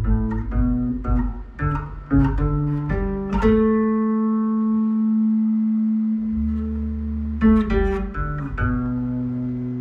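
Electric bass guitar played through an effects pedalboard with a compressor: a run of plucked notes, one long note held for about four seconds, then more plucked notes.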